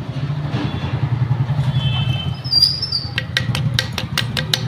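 A motorcycle engine running steadily with a low, even throb. From about three seconds in, a quick run of sharp taps, about six a second, sounds over it.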